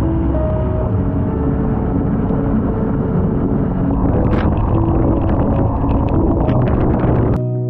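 Royal Enfield Himalayan motorcycle on the move in heavy rain: a steady low rumble of wind and road noise, with soft background music underneath. Near the end the riding noise cuts off and only the music carries on.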